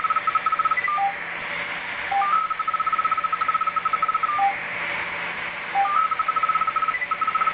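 Rapid electronic beeping, about ten short beeps a second at one pitch, comes in runs of one to two seconds, with single lower beeps between them. It sits over a steady hiss, like radio interference or a data signal.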